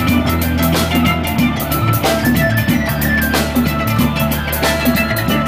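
A live band playing an upbeat tune on electric bass guitar, mandolin, guitar and drum kit, with the drums keeping a beat over steady bass notes.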